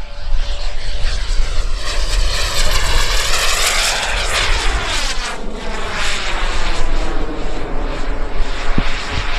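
Radio-controlled model turbine jet flying past, its whine and rush swelling to loudest about halfway through, then sweeping down in pitch and fading as it goes by.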